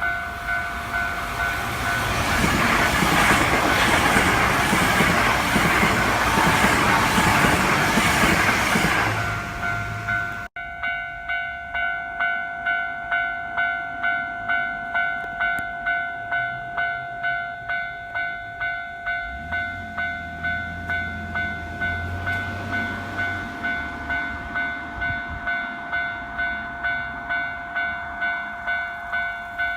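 Japanese level-crossing warning bell ringing about twice a second while a Hankyu electric train runs past over the crossing for the first ten seconds or so. After a brief dropout the bell keeps ringing on its own, with a low rumble for a few seconds near the two-thirds mark.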